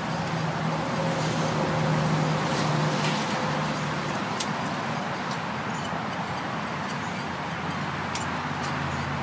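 Road traffic: a vehicle engine running steadily, with a few faint light clicks.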